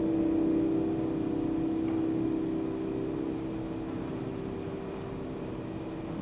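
Sustained low keyboard tones from the music holding and slowly fading away. One steady low tone lingers after the others die down.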